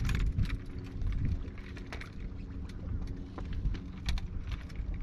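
Wind buffeting the microphone as a steady low rumble, with many scattered light clicks and taps.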